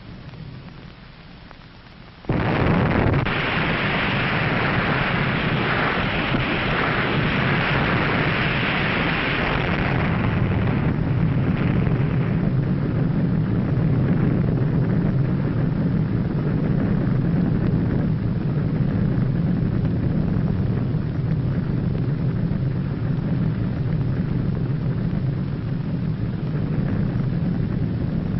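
Underwater nuclear explosion sound effect: a low rumble, then about two seconds in a sudden loud blast of rushing hiss that thins out after about ten seconds and leaves a steady deep rumble.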